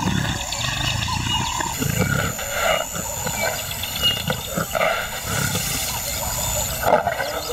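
Lioness growling over a fresh kill in a series of short, uneven, rough growls.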